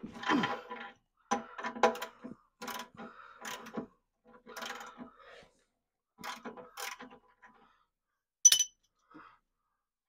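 Ratchet wrench clicking in about five short runs as it works the oil pan drain plug loose. A single sharp metallic clink follows near the end.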